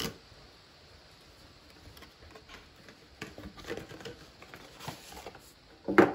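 Cardboard box of a trading-card tin being opened by hand: scattered scratchy rustles and small clicks of card. A louder knock or scrape about six seconds in, as the metal tin slides out of the box.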